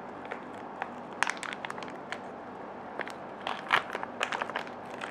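Stiff MRE cracker pouch crinkling and crackling as it is pulled open by hand, in irregular sharp crackles.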